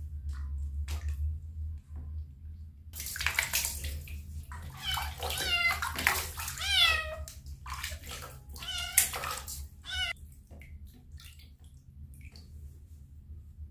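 A kitten meowing several times in quick succession while standing in a basin of water. Water sloshes and splashes around it as a hand moves through the water.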